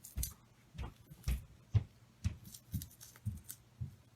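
Masking tape being peeled off a painted plastic model part in short tugs, giving a run of brief scratchy rips and taps about twice a second.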